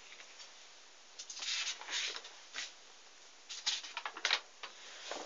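Faint rustling and handling noises: a few short scuffs starting about a second in and a second cluster near the end, over a low steady hiss.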